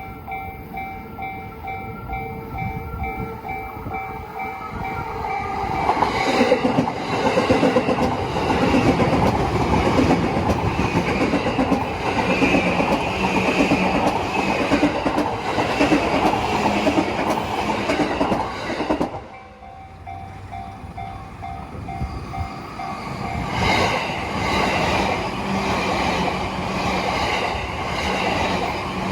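Japanese level-crossing warning bell ringing in a steady repeating pattern, then a JR East E235-series Yamanote Line train passes with loud wheel and rail noise and a rhythmic clatter over the rail joints. After an abrupt cut about two-thirds through, the crossing bell rings again and a second train comes through.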